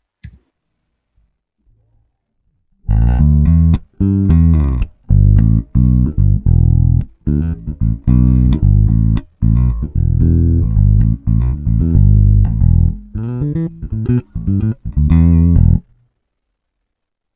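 Electric bass guitar playing a run of plucked notes, recorded direct through an audio interface and heard through a channel-strip plugin on the monitoring. The playing starts about three seconds in and stops a little before the end.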